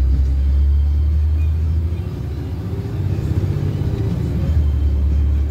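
Inside a moving city bus: steady low rumble of the engine and road, easing a little about two seconds in and building again.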